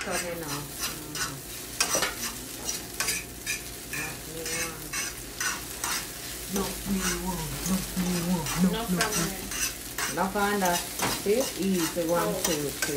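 A spatula stirring and scraping scrambled eggs in a nonstick frying pan, with quick repeated scraping strokes over a light frying sizzle. A low wavering pitched sound joins in during the second half.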